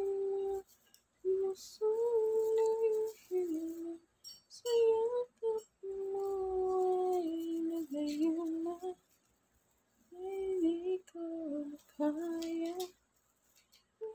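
A woman humming a tune in short phrases of held notes, with brief pauses between phrases.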